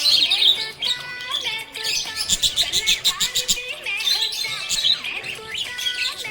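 Budgerigar chirping and warbling in quick high chirps and short glides, with a fast chattering run of chirps about two seconds in, over background music.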